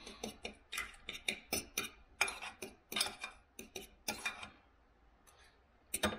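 Cutlery clinking and scraping against a dinner plate in quick, uneven strokes, falling quiet about four and a half seconds in, with two more clinks near the end.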